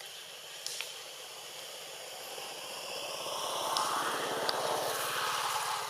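A passing engine, rising in level from about two seconds in, loudest in the second half, then easing off, with a few sharp clicks.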